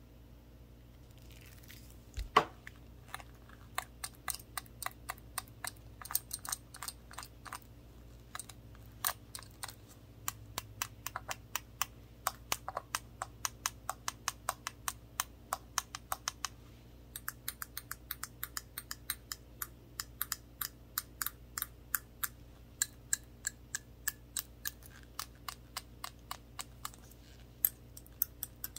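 Gloved fingertips tapping quickly on a small shot glass with a handle: a steady patter of light, sharp clicks, several a second, with one louder knock about two seconds in.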